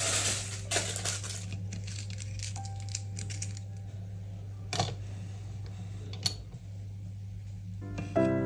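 Glass pot lid settling onto a metal cooking pot, rattling and clinking against the rim for about a second, then two sharp clicks a second and a half apart partway through, over a steady low hum. Piano music comes in near the end.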